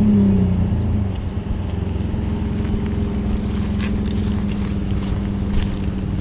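Small off-road vehicle's engine just started, its pitch settling within the first second, then running steadily at low speed as it drives along.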